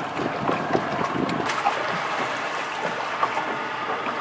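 Water lapping against a small boat's hull, with a few light knocks and clicks from a crab trap and its rope being handled on the deck.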